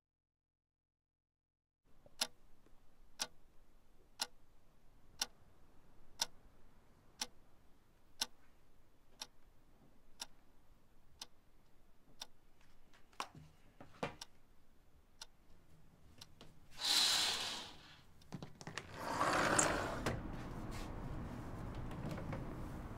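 A clock ticking once a second in a quiet room. Near the end a curtain swishes twice as it is pulled aside, followed by a steady hiss of background noise.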